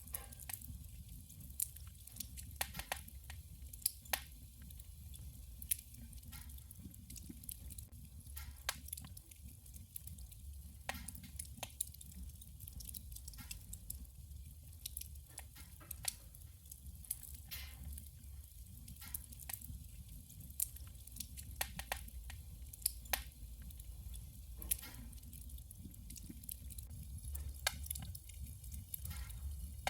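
Burning firewood in a wood stove crackling and popping: irregular sharp snaps, a few louder than the rest, over a steady low rumble of the fire.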